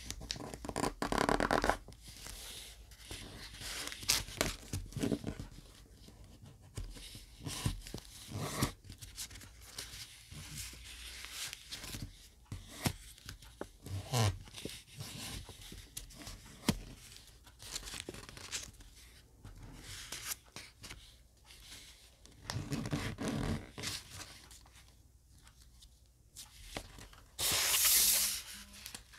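Colored origami paper being folded and creased by hand: irregular crinkling, rustling and short crackles of the paper. A louder, longer rustle comes near the end.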